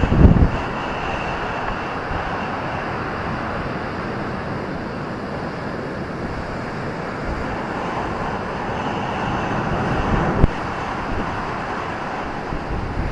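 Ocean surf breaking on a beach: a steady roar of surf that swells again near the end, with wind buffeting the microphone at the start.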